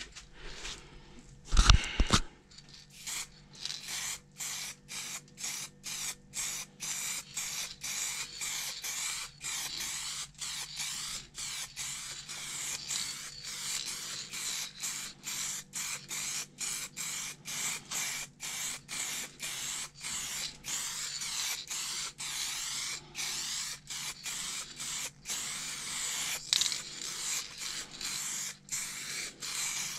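Aerosol spray paint can hissing in short repeated bursts, about two a second, as paint is sprayed onto a car fender. A loud thump comes about two seconds in, before the spraying starts.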